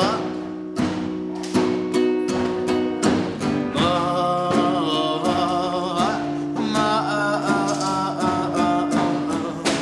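Band music in a passage between sung lines: rapid picked or strummed guitar over sustained low notes.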